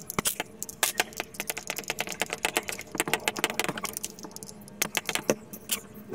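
Small metal parts clicking and clinking as they are handled: a drill chuck, a threaded cutting-disc arbor and its flange washers and nut being fitted together by hand. Many irregular sharp clicks in quick succession.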